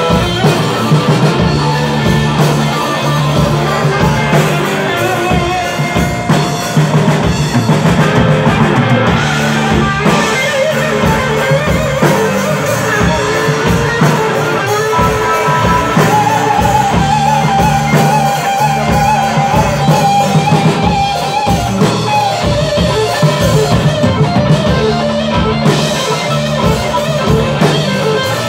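Live rock band playing loud: distorted electric guitars, bass and a drum kit. A long held high note stands out over the band for several seconds past the middle.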